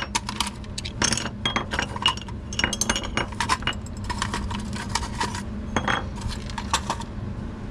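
Small metal knife parts clinking and rattling against one another as a pile of old, broken OTF automatic knives is handled. The clinks come thick for the first five seconds or so, then only a few, over a steady low hum.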